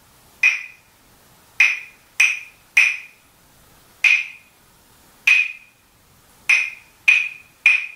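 A pair of wooden claves struck together in a repeating rhythmic ostinato: two evenly spaced strikes, then three quicker ones, each a sharp, short ringing clack.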